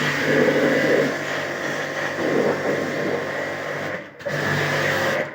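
Small electric pressure washer running, its motor and pump going steadily with the hiss of the water jet. It stops briefly about four seconds in, then starts again.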